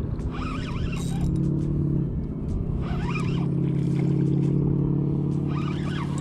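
Spinning reel's drag singing in a steady buzz as a hooked red drum pulls line off the spool. The buzz cuts off abruptly near the end.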